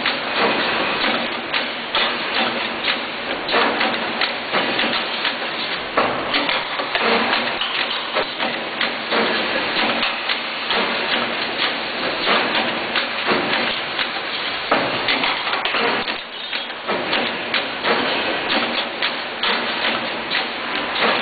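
Dual-direction CNC rebar bending machine at work, feeding and bending a steel bar: a continuous clatter of many small knocks.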